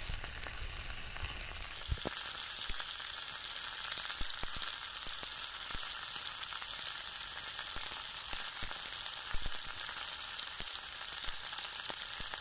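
Steak frying in oil in a black steel pan over a wood fire: a steady high sizzle that comes in strongly about one and a half seconds in, with small pops scattered through it.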